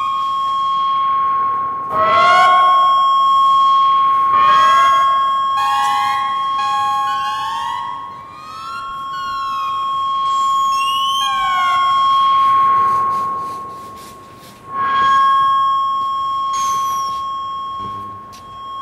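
Electronic synthesizer sound art: a steady high tone held under a series of short gliding tones, most sliding upward, in siren-like sweeps. The held tone fades out around thirteen seconds in and returns about two seconds later.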